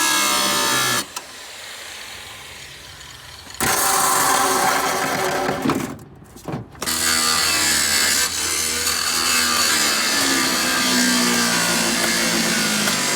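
Power tool cutting into a rusted steel truck frame, loud and rasping with a wavering pitch; it eases off about a second in, bites in again after a few seconds and pauses briefly near the middle.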